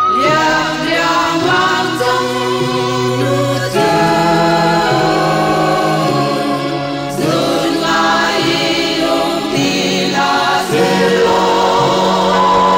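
A vocal group singing a Chin traditional song in harmony, with long held notes that waver slightly. A new phrase starts about every three and a half seconds.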